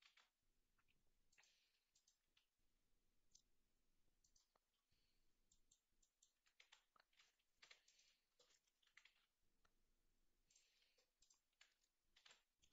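Faint, irregular clicking of a computer mouse and keyboard keys, in scattered clusters over near silence.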